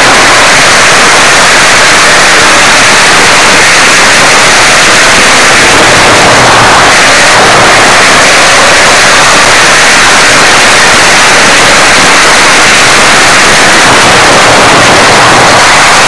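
Dirt-track stock car heard from its in-car camera: a constant, harsh, distorted hiss of engine and wind noise that overloads the microphone, with no change in pitch.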